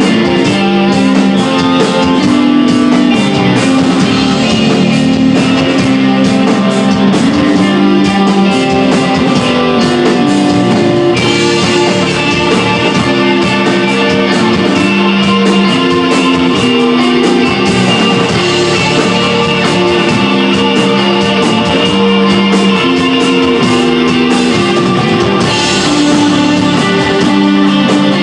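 Instrumental desert rock band playing live, loud: electric guitar holding long sustained notes over bass and drums, with steady cymbal hits. The cymbals and high guitar get brighter about eleven seconds in.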